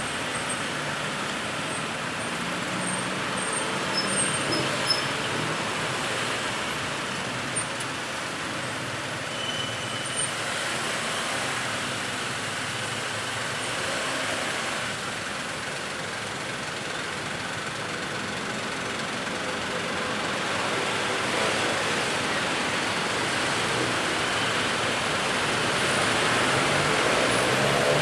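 Road traffic: a steady wash of passing vehicles, growing louder over the last few seconds as traffic comes closer.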